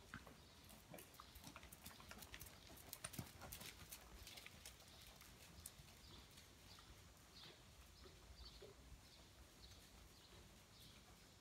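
Faint hoofbeats of a thoroughbred horse trotting on soft sand footing, with a cluster of light clicks in the first few seconds, then soft, evenly spaced footfalls about twice a second.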